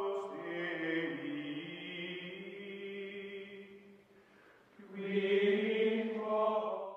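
Outro music of slow, held choir-like chanting voices; it fades away about four seconds in, swells back a second later and stops abruptly at the end.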